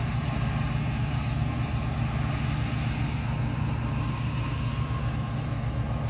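Farm machinery engine running steadily at a constant speed, a low, even drone.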